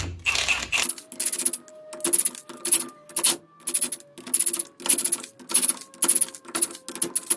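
Impact wrench hammering in short bursts, about two a second, running the ring gear bolts into a Nissan C200 differential carrier one after another, with a faint motor whine between bursts.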